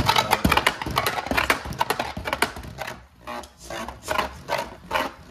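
A Dusk Balkesh Beyblade Burst top, just launched, spinning across a plastic stadium floor with a dense clatter of quick clicks and knocks as it skids and strikes the walls. After about two and a half seconds the knocks thin out to one every half second or so.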